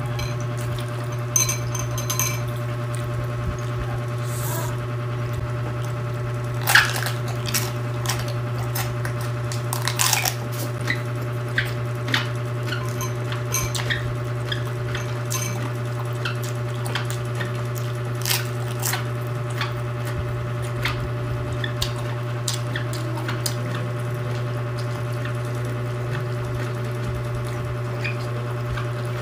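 Close-up eating sounds of raw cabbage being chewed, with irregular crunches, wet clicks and mouth smacks, the loudest crunches about 7 and 10 seconds in. A steady low hum runs underneath.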